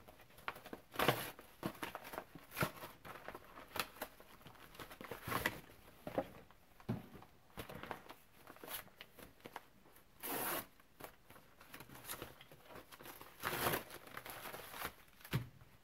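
A mailed package being opened by hand: irregular tearing and crinkling of the packaging in short bursts, with one longer tear about ten seconds in.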